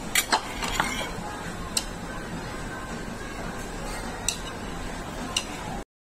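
Occasional sharp clinks of dishes and cutlery over steady background room noise, stopping abruptly near the end.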